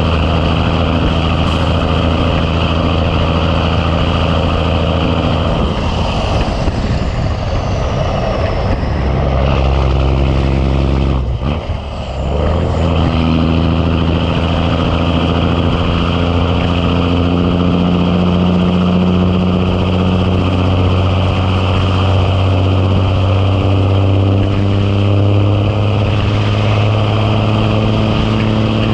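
Big Cam Cummins inline-six diesel in a Ford LT9000 truck running under load. The sound breaks off briefly about eleven seconds in, then the engine note climbs steadily as it pulls.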